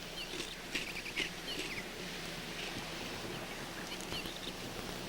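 Faint bird chirps, a few short quick downward-sliding calls mostly in the first two seconds, over a steady hiss.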